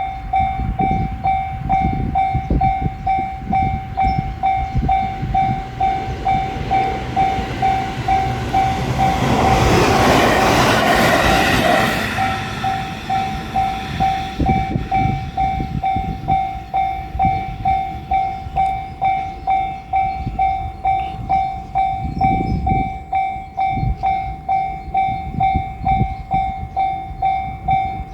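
Level-crossing warning bell ringing in a steady, evenly repeating pulse while a JR Shikoku 7200 series electric train rolls through with a low rumble of wheels on rail, its rush loudest about ten seconds in.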